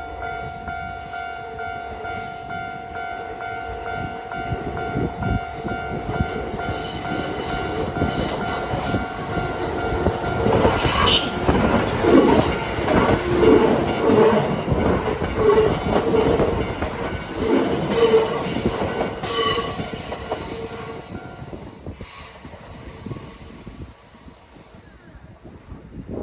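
Kintetsu 8600 series train passing over a level crossing, its wheels clattering and squealing on the rails, with a horn warning for track workers. A level-crossing warning bell rings steadily and stops a few seconds after the train has gone by.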